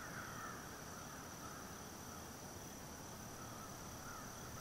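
Faint insect chorus: a steady, high-pitched trill runs on unbroken, with softer wavering chirps lower down.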